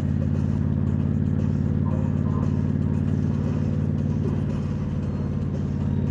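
Motorcycle engine running at a steady cruising speed, holding one low, even pitch.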